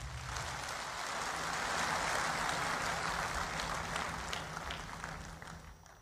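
A large audience applauding, the clapping swelling over the first two seconds and then dying away near the end.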